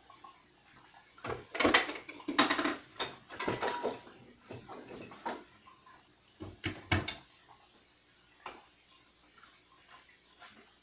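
Refrigerator door being opened and shut while containers are moved around inside: a few bursts of knocks and clatter, the busiest in the first few seconds, a second burst past the middle and a single knock later.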